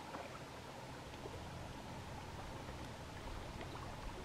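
Faint, steady outdoor background noise with a low rumble and a light hiss.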